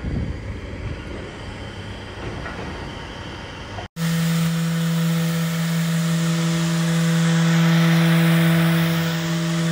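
Festool random orbital sander with a dust-extraction hose running against a painted boat hull: a loud, steady hum over hiss. It starts sharply about four seconds in, after a few seconds of quieter jumbled background noise.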